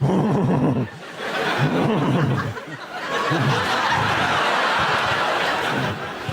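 A studio audience laughing, swelling into a long, steady wave of laughter about three seconds in.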